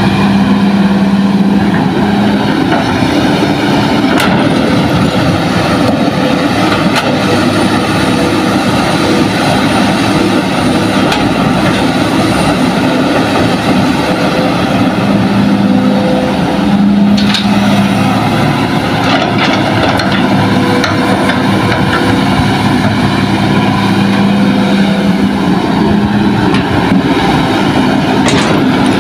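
Hitachi hydraulic excavator's diesel engine running steadily under load as it digs and loads a dump truck, its hum swelling and easing with the work, with a few sharp knocks.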